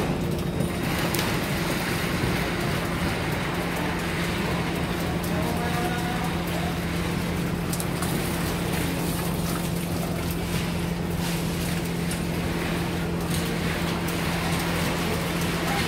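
Moored fishing boat's engine running steadily, a constant low hum with no change in speed.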